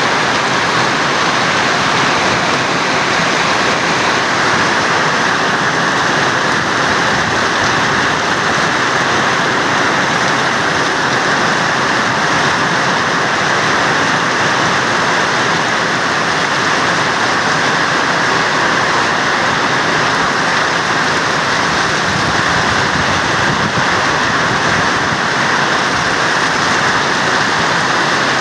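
Heavy typhoon rain pouring down steadily: a loud, unbroken hiss.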